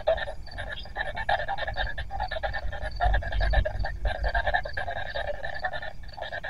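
Spirit box radio scanner sweeping through stations: a rapid, choppy stutter of radio static and broken fragments of sound, chopping many times a second. A low rumble swells about three seconds in.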